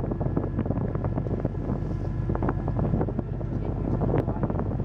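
A ferry's engine drones steadily, with wind buffeting the microphone on deck.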